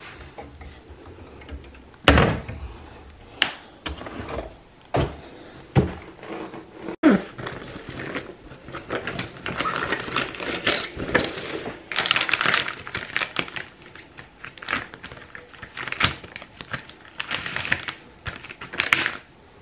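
Makeup containers and tools being picked up, opened and set down: a run of sharp knocks and clicks in the first half, then longer stretches of rustling.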